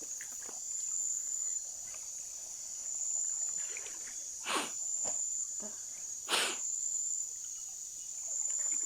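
Steady high-pitched chorus of night insects such as crickets. Two short noisy scuffs or splashes come about two seconds apart near the middle.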